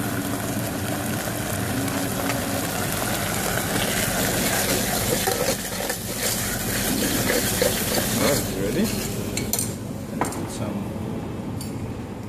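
Risotto sizzling in a saucepan while a spoon stirs it, with small scrapes and clicks of the spoon against the pot, as it is finished with pesto just before serving. The stirring is loudest in the middle and eases off near the end.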